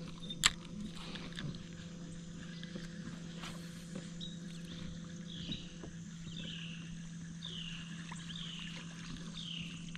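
Steady low hum of a boat's electric trolling motor, with a sharp click about half a second in. From about halfway through, a high falling chirp repeats roughly once a second over the hum.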